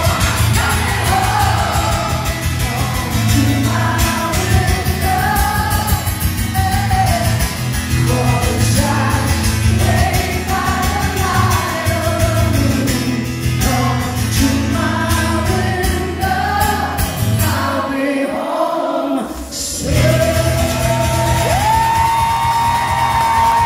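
Live concert music heard from the audience: singing over acoustic guitar and band with a steady bass. Near the end the bass drops out for about two seconds, then a long note is held and steps up in pitch.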